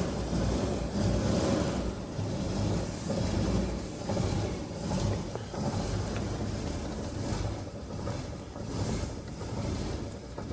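1947 Dodge flathead straight-six engine idling cold on choke. The owner says a slight knocking sets in only at very low idle with the engine cold; a teardown found only slight movement in one piston, within tolerance.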